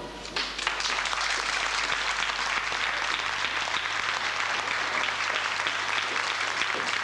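Audience applauding: dense, steady clapping that starts about half a second in.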